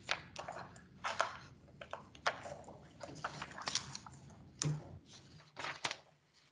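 Faint, irregular rustles and taps of paper being handled and signed with a pen, heard over a video-call microphone.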